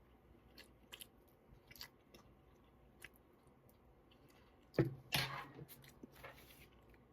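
Close-up eating sounds: quiet chewing and small mouth clicks, with one louder sound about five seconds in.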